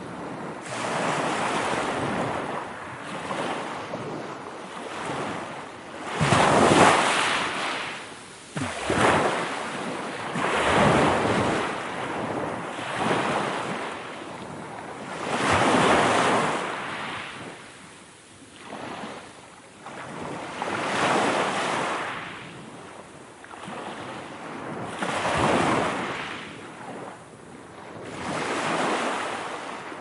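Sea waves breaking, a rush of surf that swells and dies away every few seconds.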